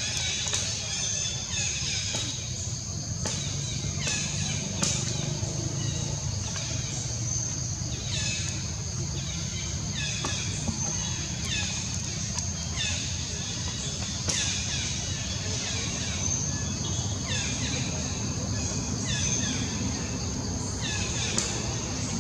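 Outdoor ambience: a steady high insect drone with short falling bird chirps repeating about once a second, over a low rumble.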